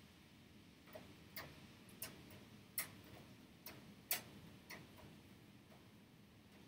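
Faint, irregular small clicks, about eight of them: the metal tips of fine tweezers and a pick tapping and catching on the iPhone 6's front-camera flex connector and metal bracket while probing a part that is stuck.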